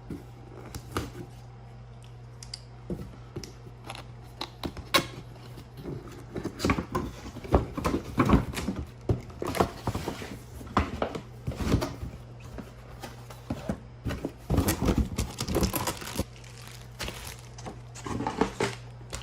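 Cardboard box and packaging being opened and handled: scattered clicks, knocks and rustling, busier in the middle, over a steady low hum.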